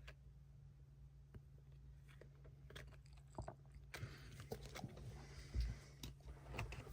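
Quiet handling of trading cards and pack wrappers: scattered small clicks and taps, with a soft crinkle about four seconds in, over a low steady hum.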